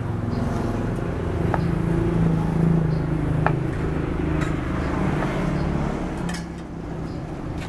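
A motorbike engine running as it passes along the street, loudest a couple of seconds in, with a sharp knock of a knife on a wooden chopping board at the start and a few light clicks.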